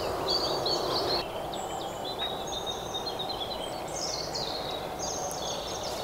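Several small songbirds singing, with overlapping high warbling phrases, over a steady low background noise that drops a little about a second in.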